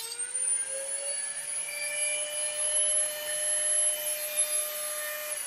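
Small handheld rotary tool with a cut-off wheel running at a steady high speed, its whine rising slightly in the first second and then holding, with light grinding on a rusted toilet tank bolt. The tool is cutting through the rusted bolt because its nut will not come off.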